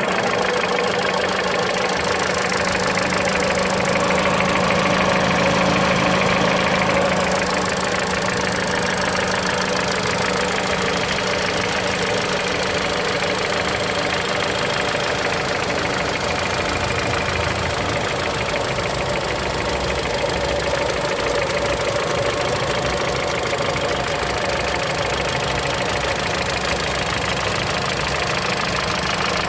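Mitsubishi Lancer X's 1.8-litre 4B10 inline-four engine idling steadily with a knock, which the owner hears only at cold idle and whose cause he does not know.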